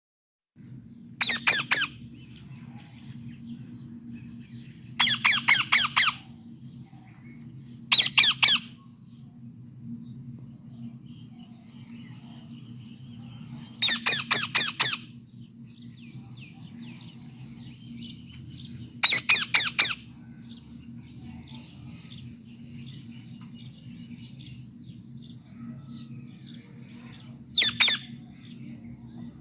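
A parrot squawking harshly in six short bursts, each a rapid raspy string of screeches, spaced several seconds apart over a steady low hum.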